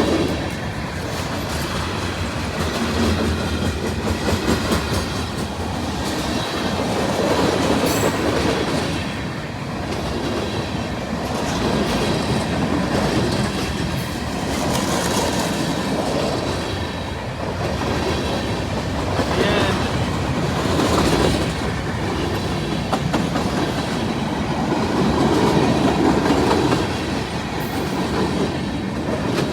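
Freight cars of a long train rolling past at close range, their steel wheels clicking over the rail joints in a steady rumble that swells and fades every few seconds.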